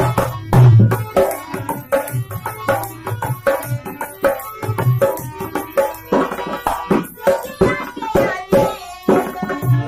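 Dholak drum beaten in a quick steady rhythm, its deep bass strokes booming, over a harmonium holding sustained reedy chords: the instrumental interlude of a Bhojpuri folk song. A woman's singing voice comes in near the end.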